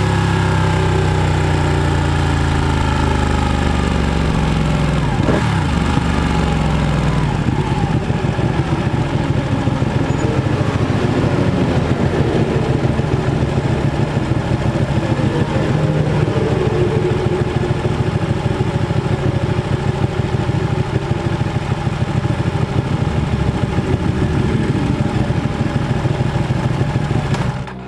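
Sport motorcycle engine heard from on board, its pitch falling as the bike slows, then, about seven seconds in, settling into a steady pulsing idle in neutral.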